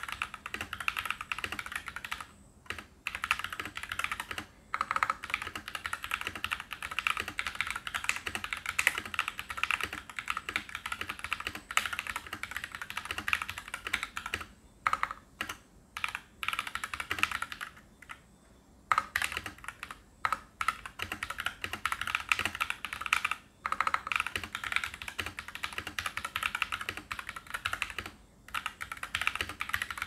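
Fast typing on a 60% mechanical keyboard with tactile, Holy Panda–style switches and PBT doubleshot Cherry-profile keycaps: a dense run of keystroke clacks as the long-pole stems bottom out, broken by several short pauses.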